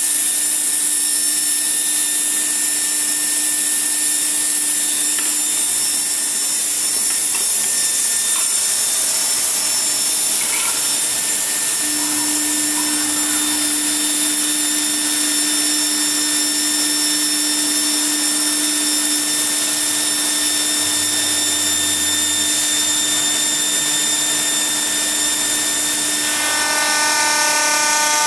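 CNC glass slotting and milling machine's spindle running and grinding glass: a steady high-pitched whine with several held tones over a grinding hiss. Near the end the set of tones changes.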